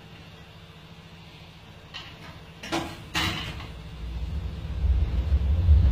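A few short knocks and clatters from kitchen work at the bench, then a low rumble that grows louder over the last two seconds.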